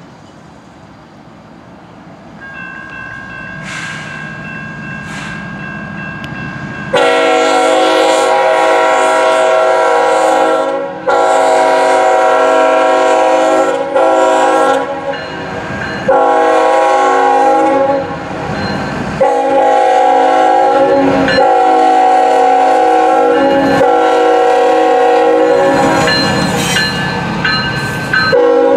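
Norfolk Southern freight train's diesel locomotive horn blowing a series of long blasts with short breaks between them, starting suddenly about seven seconds in. Under it is the rumble of the diesel locomotives, which rises as they draw near and pass.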